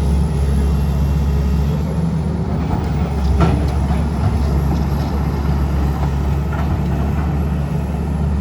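A heavy engine running steadily with a low rumble, with a brief knock about three seconds in.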